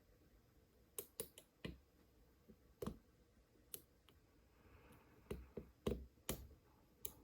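Small, irregularly spaced clicks of a lock pick and tension wrench working the pin stacks of an Almont re-key padlock, about ten in all, several of them in quick succession.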